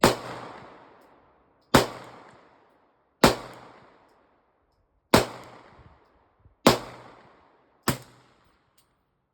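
Six shots from a semi-automatic handgun, fired one at a time at uneven gaps of about one to two seconds. Each shot rings out for about a second after it. The string empties the magazine.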